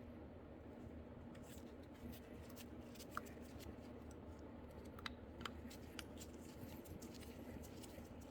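Faint, scattered small clicks and taps of small metal parts and tools being handled, over a low steady hum.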